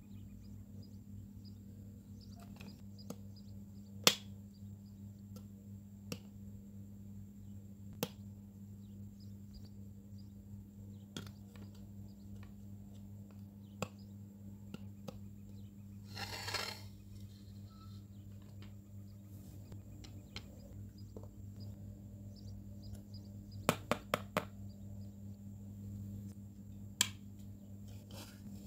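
Small hard parts being handled and set down: scattered sharp clicks and taps, a quick run of three near the end, and one brief scraping rustle midway, over a steady low hum.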